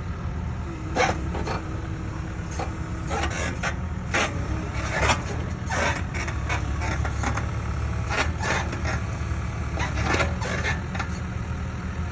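Mini excavator engine running steadily under load, with a steady whine for the first three seconds or so and irregular knocks and scrapes from the machine working throughout.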